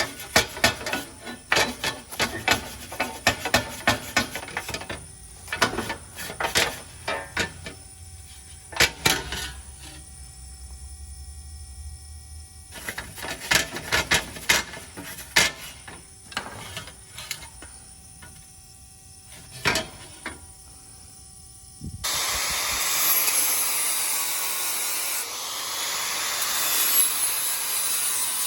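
Workshop handling noise: a string of sharp clinks and knocks of tools and metal being handled. About 22 seconds in, it gives way to a louder, steady abrasive scraping, as of metal being rubbed or brushed.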